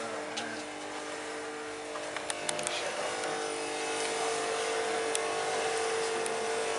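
A corded electric hair tool held to the hair hums steadily, a little stronger about three seconds in, with a few light clicks from handling.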